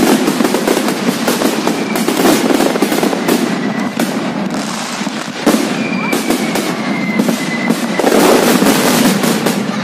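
Aerial fireworks display in full swing: a dense, continuous barrage of crackling bangs and bursts. Whistling rockets are heard a few times, each whistle sliding slightly down in pitch.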